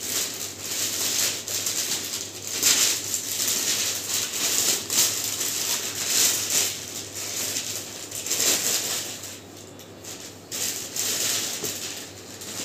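Thin plastic carrier bags rustling and crinkling in uneven surges as clothes are pushed into them and the bags are handled.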